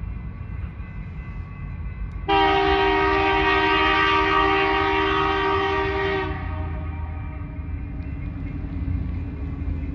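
Diesel locomotive air horn on an approaching BNSF SD70 sounding one long blast of about four seconds, a chord of several steady notes that starts abruptly, over the low rumble of the oncoming train.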